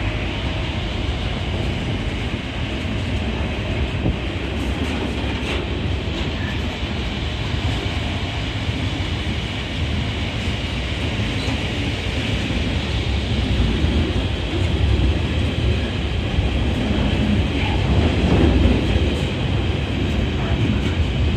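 GB Railfreight Class 66 diesel-electric locomotive, with its two-stroke EMD diesel engine, working hard under power as it hauls a freight train past, alongside the rumble of the train on the rails. The sound stays loud and grows louder in the second half.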